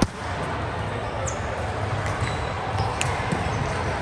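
A volleyball struck hard once right at the start, then steady sports-hall background noise with a short high squeak a little over a second in and a smaller sharp hit about three seconds in.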